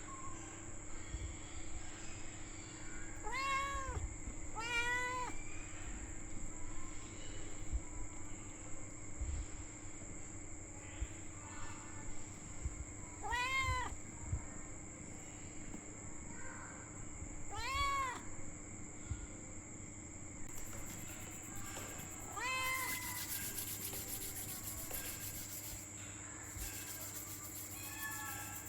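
Kitten meowing: five short meows, two close together early and then three spaced several seconds apart, each rising and then falling in pitch. A steady hum runs underneath, joined by a hiss in the last third.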